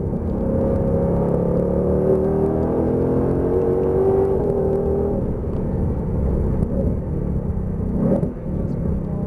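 Ford Shelby GT500's V8 heard from inside the cabin at full throttle. Its pitch rises for about five seconds as the car accelerates down a straight, then drops as it lifts off and slows for a corner. A short thump comes about eight seconds in.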